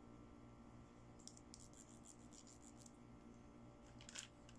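Faint plastic clicks and scratches from handling a pink plastic toy comb: a run of quick light ticks, then one sharper click near the end, over a low steady hum.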